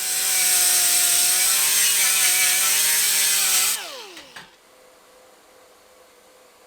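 Hand-held power grinder running steadily for about four seconds with a hissing, whining note, then switched off and spinning down with a falling whine.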